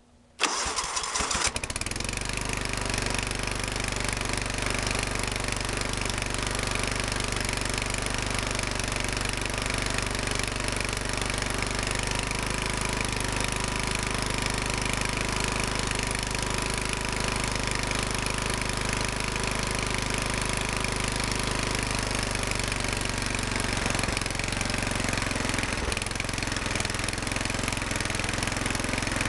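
Kohler Command 12.5 hp single-cylinder lawn tractor engine starting about half a second in, after a brief crank, then running steadily. Its note shifts slightly near the end.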